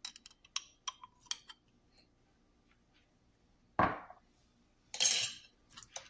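Utensils clinking against glass dishes and jars: a run of light clinks, then a duller knock and a short scraping rustle near the end.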